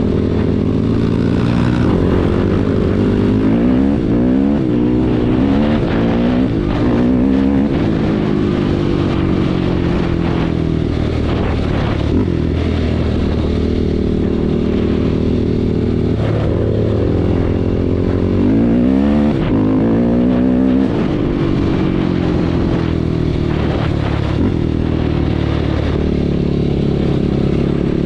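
An engine running steadily, its pitch rising and falling as it revs, once a few seconds in and again about two-thirds of the way through.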